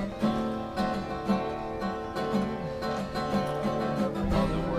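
Acoustic guitar music with strummed chords, the notes changing every half second or so.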